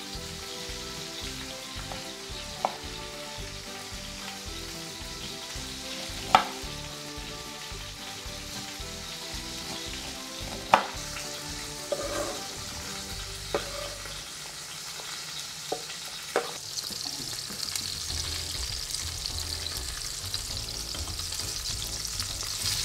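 Chicken breasts frying in olive oil in a pan, a steady sizzle, with several sharp knocks of a knife on a wooden cutting board as corn kernels are cut from the cob. The sizzle grows louder for the last few seconds as the chicken is turned with tongs.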